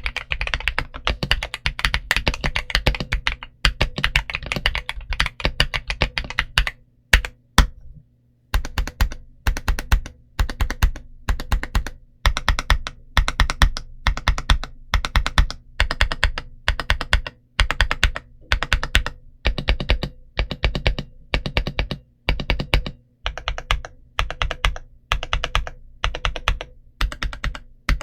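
GMK61 mechanical keyboard with MMD Honey tactile switches and XVX Retro 100 PBT keycaps being typed on: fast continuous keystrokes, a short break about seven seconds in with a few single presses, then typing in short bursts with brief pauses.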